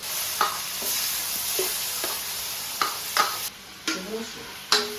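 Food hitting hot oil in a frying pan and sizzling at once, while a metal spatula scrapes and knocks against the pan as it is stir-fried. The sizzle drops away about three and a half seconds in, leaving spatula knocks.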